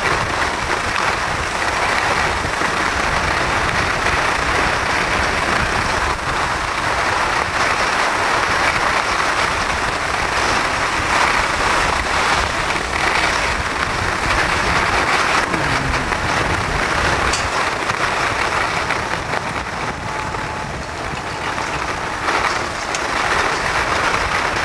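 Skis sliding fast downhill over spring snow: a steady rushing hiss, with wind buffeting the microphone underneath.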